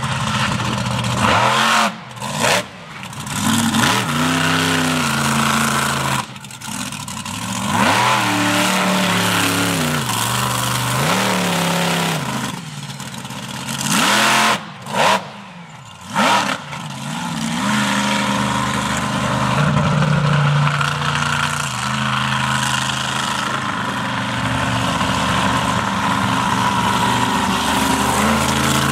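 Monster truck engine revving hard again and again, its pitch climbing and falling as the truck drives over crushed cars, then running more steadily near the end. The sound cuts out abruptly for moments several times.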